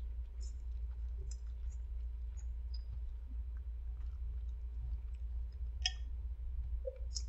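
Quiet eating sounds: faint, scattered clicks of chewing and of chopsticks against a bowl of noodles, over a steady low hum.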